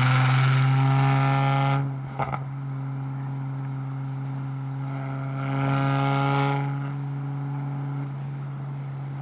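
Mercedes C43 engine running at a steady, unchanging pitch. It is loud for the first couple of seconds, drops back, then swells louder again about six seconds in before easing off.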